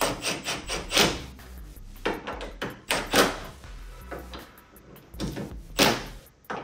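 Irregular knocks, clunks and scrapes of hands and tools working around a car's carbon fiber trunk lid, with the loudest about a second, three seconds and six seconds in.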